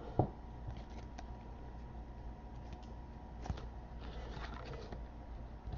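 Faint handling of freshly unwrapped trading cards being sorted through by hand: a few soft clicks and light rustles over a steady low electrical hum with a faint whine.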